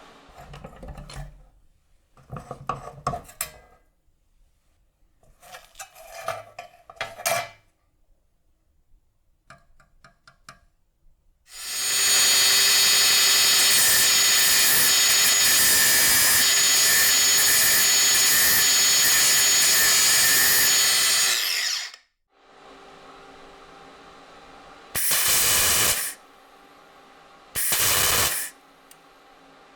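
A few short scraping and handling noises, then a power tool runs steadily and loudly for about ten seconds before cutting off abruptly.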